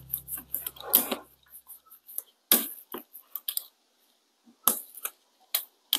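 Hand brayer rolled back and forth over wet acrylic paint on paper and a stencil, giving irregular clicks and ticks with short quiet gaps between them.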